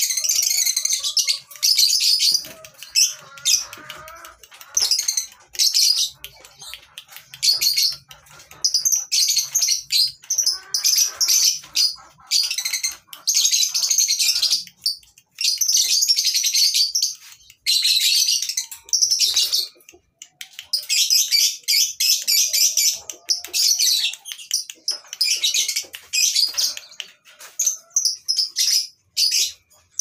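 Many caged lovebirds chattering and trilling together, a dense high-pitched twittering that comes in quick bursts with short breaks between.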